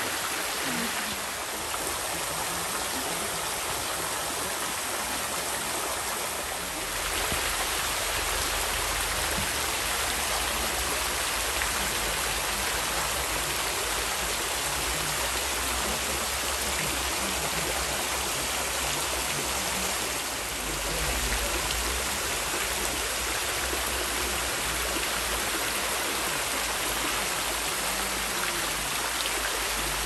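Small spring-fed waterfall falling in thin, rain-like strands off a moss-covered rock ledge hung with icicles, splashing steadily into a pool below.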